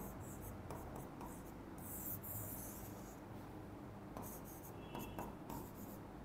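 Writing during a lecture: a run of short, irregular scratchy strokes with brief pauses between them, over a low steady hum.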